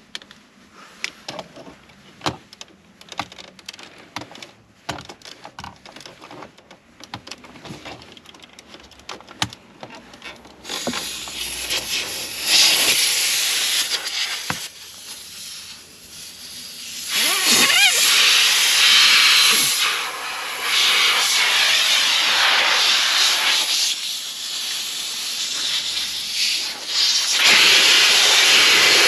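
Clicks and knocks of a coiled air hose and its fittings being handled. Then, about ten seconds in, compressed air starts hissing loudly out of the hose and blow gun, in long blasts that swell and dip several times.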